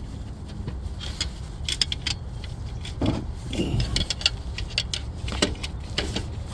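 Metal parts and tools being handled: scattered short clinks and rattles, some in quick clusters, over a steady low rumble.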